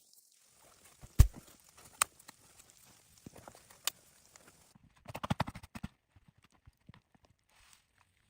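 A few separate sharp knocks, the loudest about a second in, then a quick run of taps about five seconds in.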